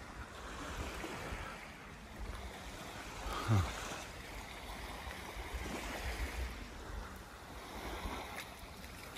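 Gentle surf washing onto a sandy beach, with a low rumble of wind on the microphone. There is a short, louder falling sound about three and a half seconds in.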